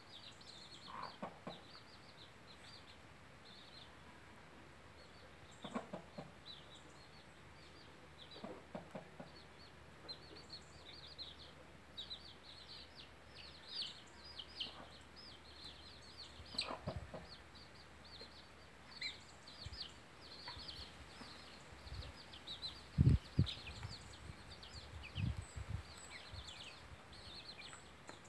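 Chicks peeping in quick, high cheeps throughout, with a mother hen clucking low now and then as they clamber over her. A few dull low thumps near the end are the loudest sounds.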